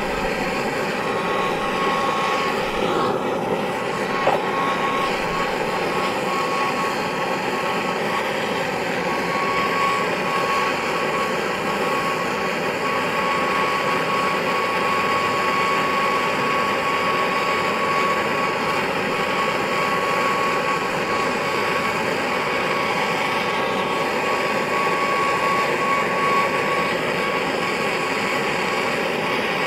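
Oxy-fuel torch flame burning steadily with an even rushing hiss, heating cement silver powder in a melting dish, with a thin steady whistle through most of it. A small click about four seconds in.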